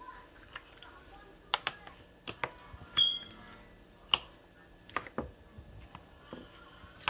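Spoon stirring thick baked beans in a glass baking dish: soft wet squishing with irregular clicks and knocks as the spoon hits the glass, two of them ringing briefly about three and four seconds in.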